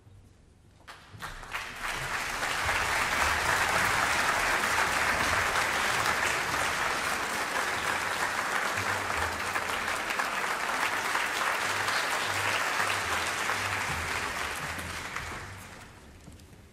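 Concert-hall audience applauding the conductor's entrance. Scattered claps start about a second in and swell into full, steady applause, which dies away near the end.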